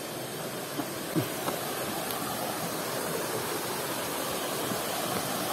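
Forest stream rushing steadily over rocks and small cascades, with a couple of faint knocks about a second in.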